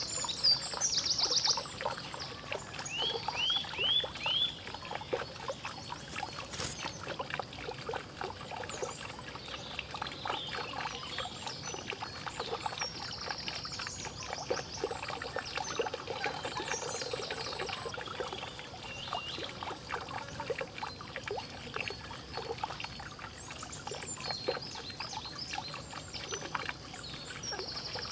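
Water trickling and splashing steadily from a bamboo pipe onto a small bamboo water wheel and into a shallow pond. Birds chirp in short bursts several times over it.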